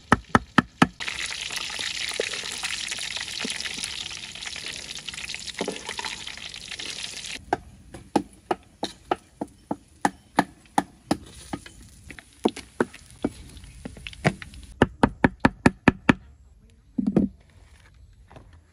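A cleaver chopping and mincing fish on a wooden chopping block, in quick sharp knocks. From about a second in until about seven seconds, a steady hiss of food frying in oil takes over. Then the chopping resumes at about two knocks a second until shortly before the end.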